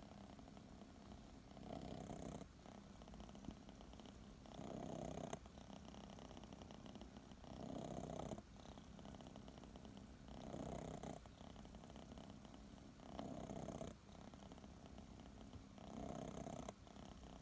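Six-month-old Scottish Fold kitten purring softly in its sleep. The purr swells louder for about a second with each breath, roughly every three seconds.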